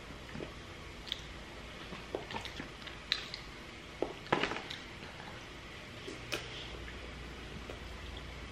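Eating sounds from a saucy seafood boil: a scattering of sharp clicks and soft wet squishes, a second or so apart, from crab shell and sauce-covered food being handled and eaten.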